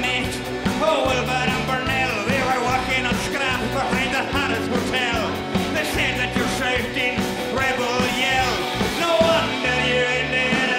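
Live folk-rock band playing: a man singing into the microphone over drums and cymbals, piano accordion and a steady low bass line.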